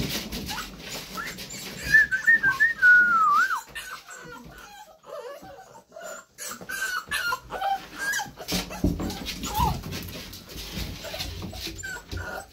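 American Bully puppies whining in high-pitched, wavering cries, the longest and loudest about two seconds in, with shorter whimpers later. Scratching and rustling of the puppies moving about runs underneath.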